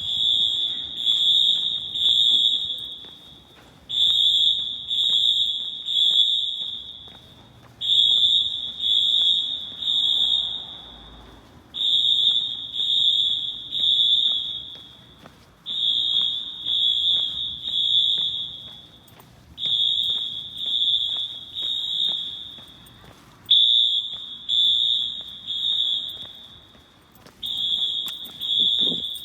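Wheelock AS electronic fire-alarm horns sounding in synchronized temporal-three: three loud, high-pitched horn blasts, then a short pause, repeating about every four seconds. This is the fire evacuation signal. The blasts echo off the concrete of a parking garage.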